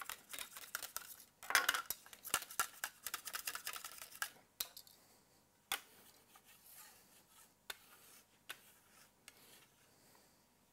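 A steel knife blade and a scraper scraping chocolate over a granite worktop in quick, dense strokes for about four and a half seconds, then quieter, with a few single sharp taps of metal.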